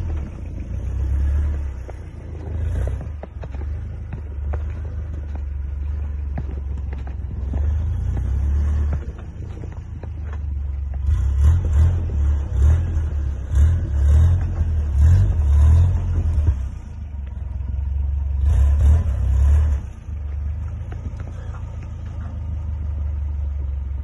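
Lifted Toyota 4x4 truck's engine running at a low rumble on a snowy trail, revving up in surges several times, with snow crunching during the louder surges.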